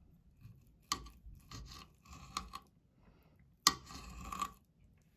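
Knife sawing through a smoked stuffed chicken wing, its blade scraping on a glass cutting board. There are two spells of strokes: a run of short ones about a second in, then a louder, longer stroke with a sharp start near the end.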